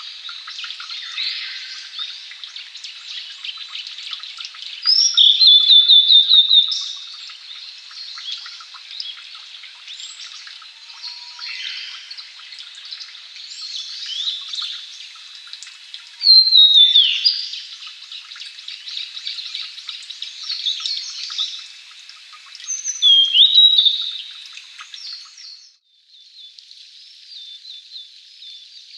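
A male Blue-and-white Flycatcher singing its territorial song in three loud phrases several seconds apart. Each phrase opens with a falling whistle and runs into a quick series of repeated notes, over softer chirping from other birds. Near the end the song stops and a steady hiss with faint chirps remains.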